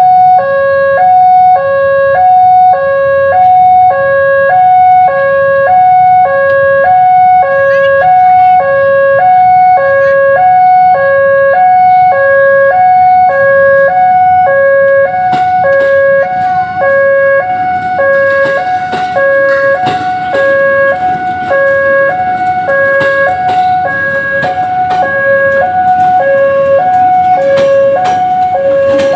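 Railway level-crossing warning alarm sounding its two alternating tones, high-low, a little under once a second, signalling that a train is coming. From about halfway a rumble with clattering clicks builds up underneath, the approaching train.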